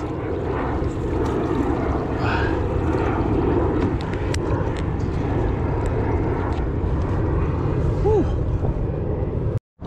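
Steady wind rumble buffeting an action-camera microphone as the canoe is paddled along, with a brief gliding tone about eight seconds in.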